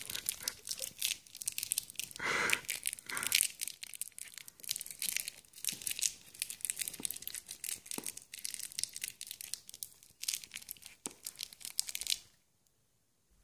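A piece of plastic crinkling in quick, dense crackles, stopping suddenly about a second before the end.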